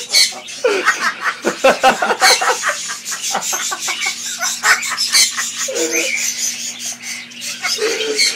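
Pet parrot mimicking human laughter: a long run of quick laughing pulses that eases off into a few softer calls near the end.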